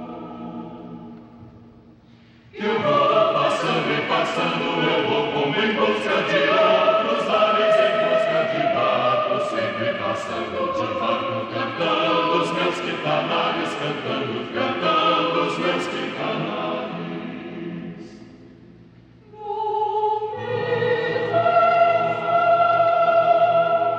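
A choir singing a Portuguese song. A held chord fades away, then the full choir enters loudly a couple of seconds in with sung words and sustained chords, dying away near the end. A few voices then begin a new phrase and the rest of the choir joins them.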